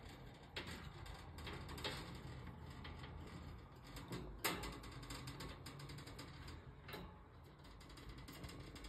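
Pet hamster scrabbling and gnawing at the wire bars of its cage: faint, irregular scratchy clicks and rattles, with a sharper click about four and a half seconds in and another near seven seconds.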